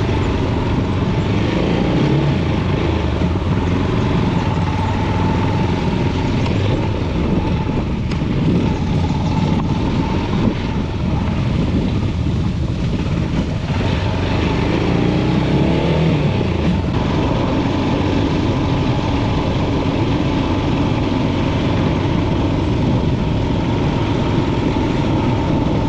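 Motorcycle engine running as the bike is ridden, its note rising and falling a few times with changes of speed.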